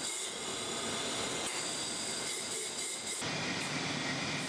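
The 6.5 horsepower petrol engine of an Evolution EVO system running steadily while it drives its dirty water pump, with a hiss of rushing water. About three seconds in the sound changes abruptly and the engine's low hum comes up.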